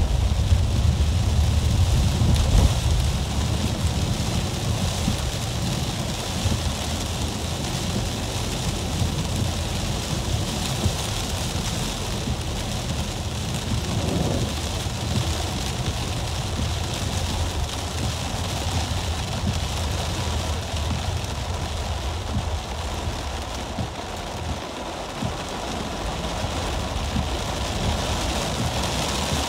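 Heavy rain on a car's roof and windshield, heard from inside the cabin while driving, with a steady low road and engine rumble and tyres hissing on a wet road.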